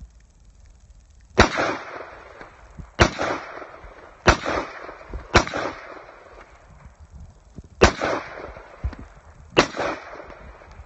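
Yugoslavian AK-pattern rifle in 7.62x39 firing six single shots at uneven intervals of one to two and a half seconds, each crack trailed by a short echo.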